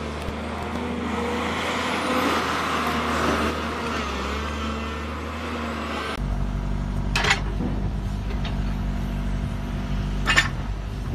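Excavator diesel engine running steadily while a ripper tooth works rocky ground, with a noisy rush over the first few seconds. Then a smaller excavator engine runs with a steadier low hum, and two short sharp knocks come about three seconds apart.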